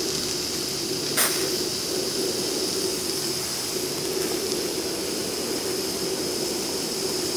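Steady hiss of steam from a hand-built model steam boiler with leaking fittings, over the even sound of its burner. A single sharp click about a second in.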